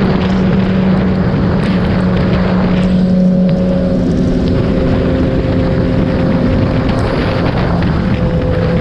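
Kawasaki ZX-10R inline-four engine running steadily at road speed, heard from an onboard camera over a continuous rush of noise. About three seconds in the engine note briefly drops and then settles at a slightly different pitch.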